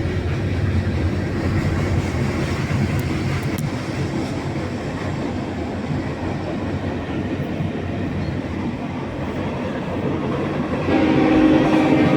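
Diesel freight train rolling past with a steady rumble of engines and wheels on the rails; about a second before the end a locomotive air horn starts to sound.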